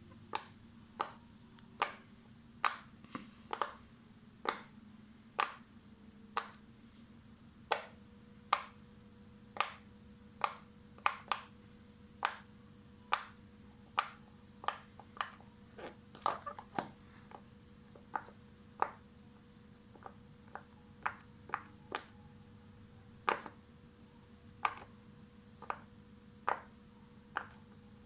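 Bubbles of a heart-shaped silicone pop-it fidget toy being pressed one after another, each giving a short sharp pop, about one or two a second and unevenly spaced.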